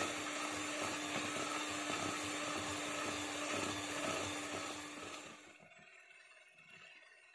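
Electric hand mixer running steadily, its beaters whisking thin, frothy cake batter in a plastic bowl, with a constant motor hum. The sound dies away about five and a half seconds in.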